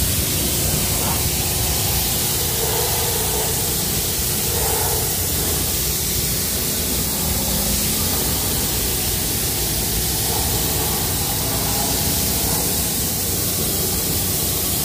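High-pressure water jets from an undercarriage washer bar spraying against a car's underside and the wet pavement: a steady hiss. The pressure washer's petrol engine hums low and steady underneath.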